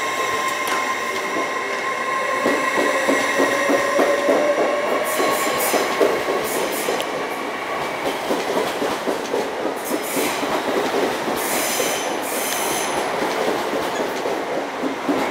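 LNER Azuma electric multiple-unit train rolling slowly past along the platform: a steady rolling noise with rhythmic wheel clicks over rail joints and a thin steady whine that fades away in the first half. Several short, high wheel squeals come in the second half.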